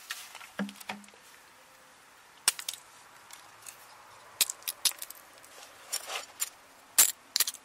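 A flower frozen brittle in liquid propane snapping and breaking apart on concrete: scattered sharp clicks and cracks like breaking glass, several in quick succession near the end.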